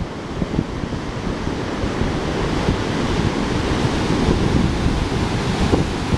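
Ocean surf breaking and washing up the beach, the waves calmed to a normal surf sound. Wind buffets the microphone with a gusty low rumble throughout.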